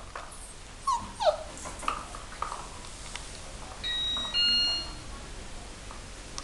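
Two puppies, a Schnoodle and a Spoodle, at play: short yips and whimpers that fall in pitch during the first couple of seconds, then two steady high squeaks in a row, the loudest sounds, about four seconds in.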